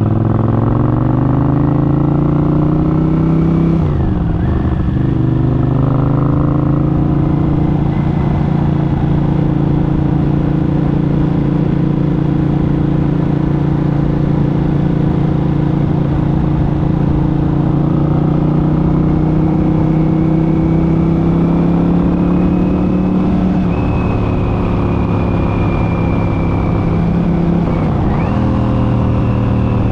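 1983 Honda CX650's V-twin engine and transmission running on the road, with a steady transmission whine over the engine note. The engine note dips and picks up again just after the start, around four seconds in and near the end, like gear changes. Between them it holds steady, and a high whine rises in the last third.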